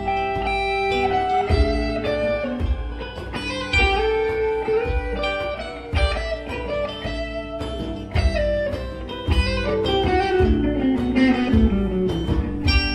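Live band playing an instrumental passage: electric guitars over hand-played congas and keyboard, with a guitar line sliding down in pitch in the last few seconds.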